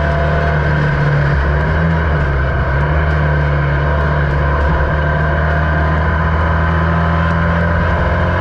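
A Formula Vee's air-cooled Volkswagen flat-four engine running hard under racing load, heard from the open cockpit with wind rush. The engine note holds fairly steady, dipping briefly about halfway through as the car takes a corner.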